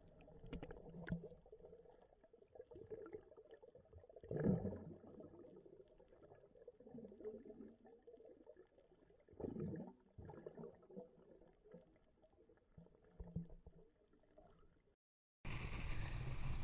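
Faint, muffled water gurgling and sloshing with a few irregular knocks. Near the end, after a brief silence, louder wind on the microphone and open-sea noise cut in.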